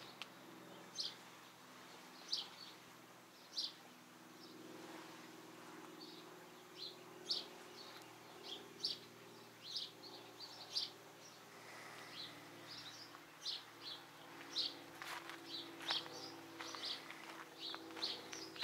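Small birds chirping, with many short, high chirps scattered irregularly throughout, over a faint steady low hum.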